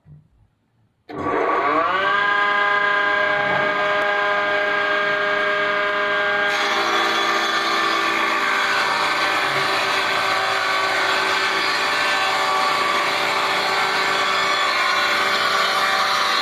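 Table saw's electric motor switched on about a second in, spinning up with a quickly rising whine and settling into a steady multi-tone running whine. About five seconds later the sound turns harsher with added hiss, and stays that way.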